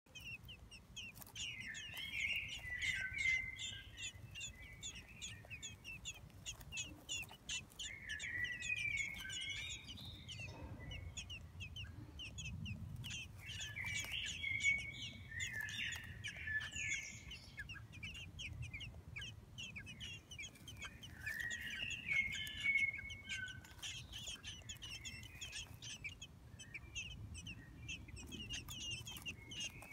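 Common blackbird nestlings begging in the nest: a steady stream of short, high chirps that swells into louder bursts of calls every few seconds.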